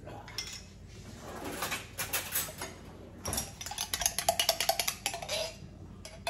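A metal spoon clinking and scraping inside a glass jar of cocktail sauce, with a quick run of sharp taps about four seconds in, after a sauce bottle is shaken over a plate of fried fish.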